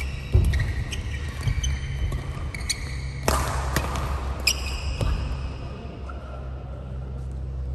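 Badminton rally: rackets strike the shuttlecock with sharp cracks, the clearest about a third of a second in and at about three and a half seconds. Between them, court shoes give short squeaks on the court mat, over a steady low hum.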